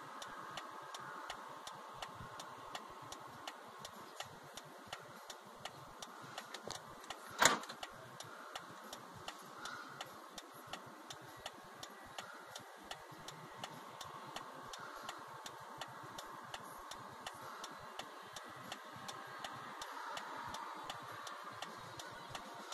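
A car's turn-signal flasher ticking steadily and regularly inside a stopped car, with one louder knock about seven and a half seconds in.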